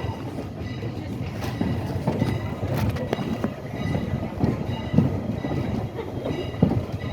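Railroad passenger coach rolling along the track: a steady low rumble with irregular knocks of the wheels over rail joints.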